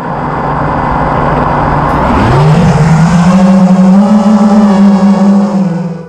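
Jet ski engine running with a rush of water, then revving up about two seconds in and holding a steady, loud drone before stopping abruptly.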